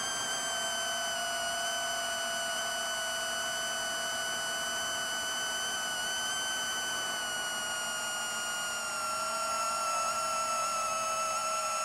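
Steady whine of a 7-inch FPV quadcopter's brushless motors and propellers (Racerstar AirB 2514 1498KV motors, HQProp 7040 props) in cruising flight. About nine seconds in the pitch dips slightly and the sound grows a little louder.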